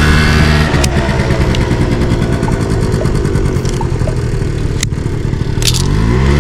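Background music with sustained low tones that change in steps and slide upward near the end, over a few sharp clicks.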